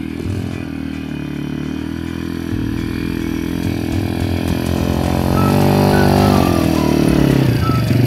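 Small engine of a youth quad ATV running, its note climbing and getting louder about halfway through as it rides closer, then easing off briefly near the end before picking up again.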